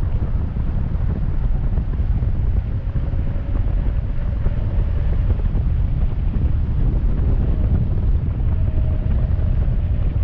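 Wind buffeting the microphone of a helmet-mounted camera on a fast-moving electric bike: a steady, loud low rumble, with a faint whine that comes and goes twice.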